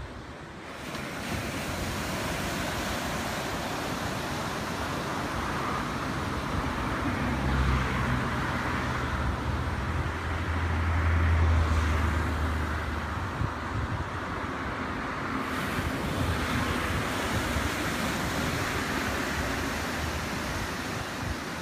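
Surf washing onto the beach with wind on the microphone, a steady rushing that swells and eases. A low rumble joins in around the middle, at the loudest stretch.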